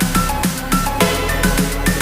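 Electronic music with a steady beat, short high synth notes and a held bass.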